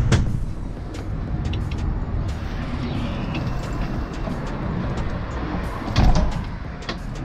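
Golf cart driving off and rolling along, a steady low rumble with scattered rattles and clicks, and a louder thump about six seconds in.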